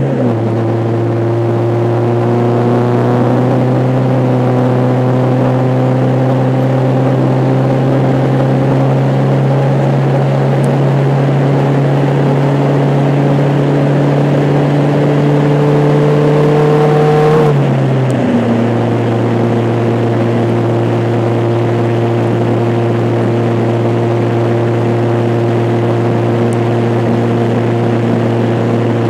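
Car engine droning steadily, heard from inside the cabin while driving, over road noise. Its pitch creeps up slowly and drops suddenly twice, near the start and about two-thirds of the way through, as the transmission shifts up.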